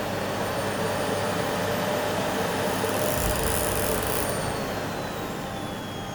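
Arnica Mika cyclone vacuum cleaner running, a steady rush of motor and airflow noise that eases slightly toward the end.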